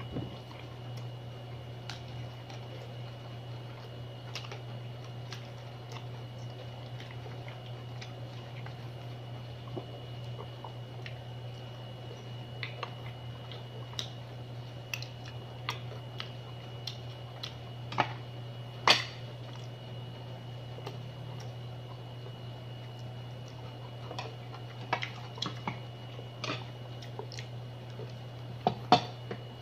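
Mud crab being eaten by hand: scattered sharp clicks and cracks of shell, with sucking and chewing, over a steady low hum. The clicks come loudest about two thirds of the way through and again in a cluster near the end.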